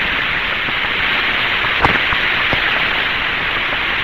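Steady static hiss on an open radio channel from a 1962 Mercury capsule flight recording, with two faint clicks about halfway through.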